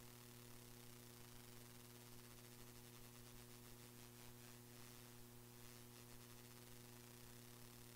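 Near silence: a faint steady electrical hum with light hiss, where the meeting's audio feed is missing.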